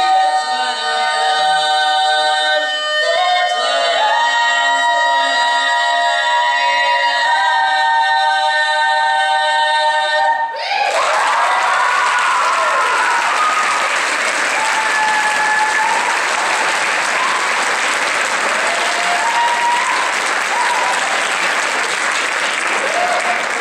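Female barbershop quartet singing a cappella in close four-part harmony, holding sustained chords. About ten seconds in the song ends and the audience breaks into applause with cheering.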